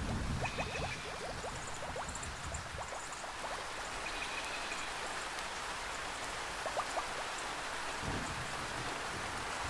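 Steady rainforest rain falling on foliage, with scattered drips. A low thunder rumble fades in the first second or so, and another rumble begins near the end.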